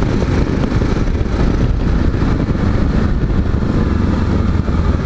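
Yamaha XT 660Z Ténéré's single-cylinder engine running steadily at road speed on a wet road, mixed with a steady rush of wind and road noise.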